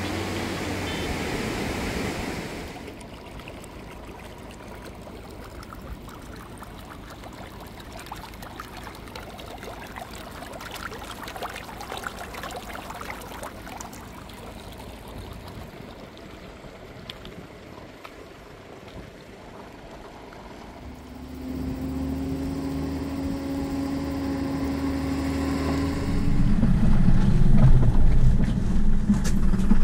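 A fast mountain river rushes steadily. About two-thirds of the way in, a vehicle engine comes in with a steady hum, and near the end the engine and tyre noise grow louder as the vehicle drives along a gravel road.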